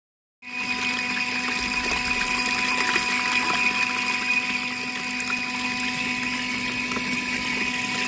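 Folding mini washing machine running a wash cycle: its small motor hums steadily with the churn and splash of water in the tub. It starts about half a second in.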